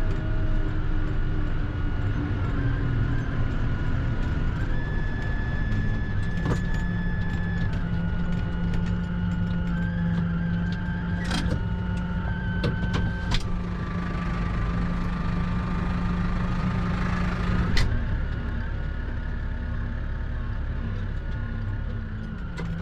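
A motor vehicle's engine running steadily, its hum shifting in pitch a few times, with a few sharp clicks partway through.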